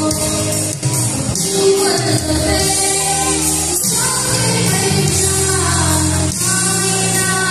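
A girl singing a solo song into a microphone, over steady instrumental accompaniment.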